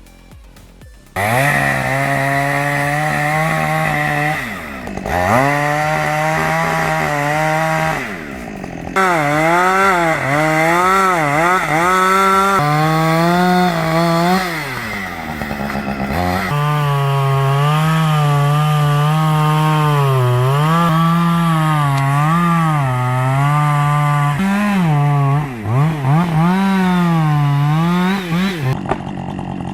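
A two-stroke chainsaw running hard and cutting, starting about a second in. Its engine note dips and climbs over and over as the chain loads and frees in the wood, with a few short drops in revs between cuts.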